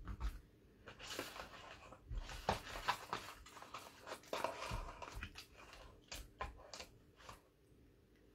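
Faint, irregular rustling and light clicks of hands handling paper craft materials and a small cardboard box of glue dots.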